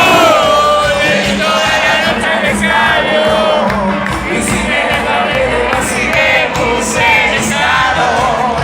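Live cuarteto band playing with a lead vocal singing over it, loud and steady throughout.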